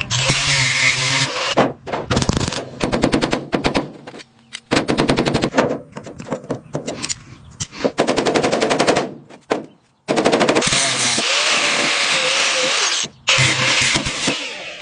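Rapid, evenly spaced metallic strikes from workshop air tools rattling, in short stretches that start and stop abruptly.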